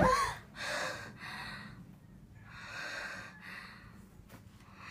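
A young woman gasps sharply, her voice catching briefly and falling in pitch, then breathes heavily in about four loud breaths.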